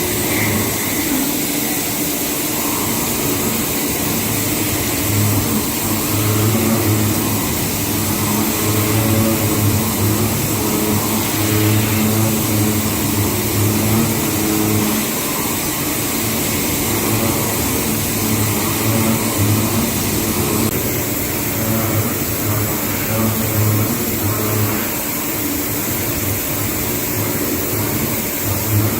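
CNC machine running steadily while machining, with a pulsing low hum under a spread of cutting and spindle noise; the sound shifts about twelve seconds in and again about twenty-one seconds in.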